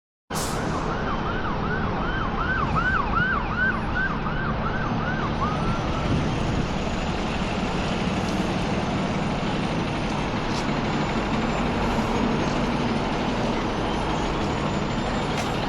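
Emergency-vehicle siren in fast yelp mode, sweeping about two or three times a second and stopping about five seconds in, over steady city street traffic noise.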